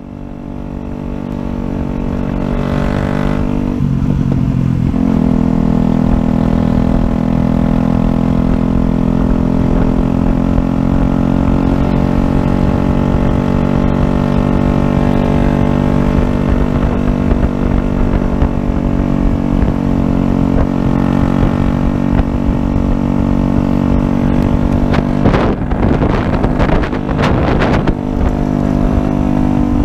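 Yamaha YZF-R125's 125 cc single-cylinder four-stroke engine running at a steady pace on the move, with wind rumble on the microphone. The sound fades in over the first couple of seconds, the engine note changes about four seconds in, and it gets noisier for a few seconds near the end.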